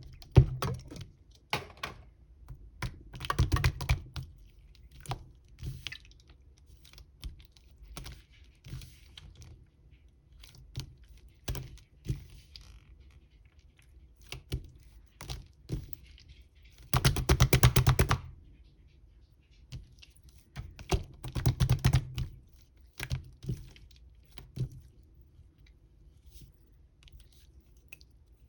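Intermittent sharp clicks and taps, gathering into quick rapid runs about three seconds in, just after the middle, and again a few seconds later.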